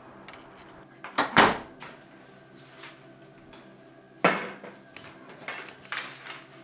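A box being set down and handled on a table: a heavy double thump about a second in, a sharp knock about four seconds in, then lighter clicks and rustling.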